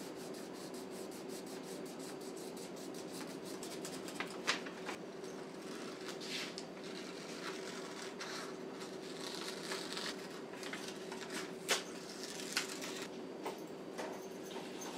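Sheet of paper rustling and scissors snipping as a paper template is cut out, with a few sharp clicks, over a steady low hum.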